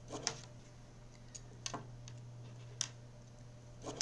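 A few light, sharp clicks and taps, about five spread unevenly, over a steady low hum: small handling noises at a tabletop.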